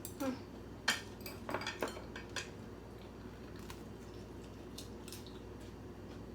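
Eating utensils clicking and tapping against a bowl: several sharp clicks in the first couple of seconds, then only a few faint ticks.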